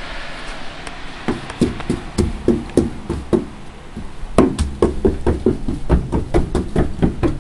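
Footsteps crunching through deep snow: a steady run of short crunching thuds, about two to three a second, starting about a second in, with a brief pause around the middle before they resume.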